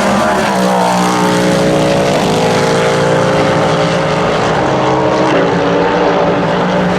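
Cadillac V-Series.R GTP prototype race car's 5.5-litre naturally aspirated V8 running at high revs. The engine note is loud and sustained, its pitch drifting slowly up and down.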